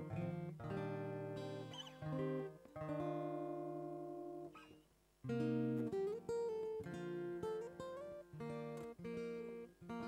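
Solo acoustic guitar played as ringing chords and single notes, with several notes sliding up in pitch in the second half. The playing stops briefly about five seconds in.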